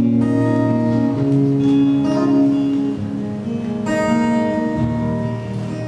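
Acoustic guitar strummed live, a few chords struck and left to ring between sung lines.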